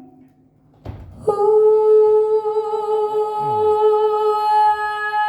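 A singer holds one long, steady note during a soundcheck vocal run, starting about a second in just after a short knock.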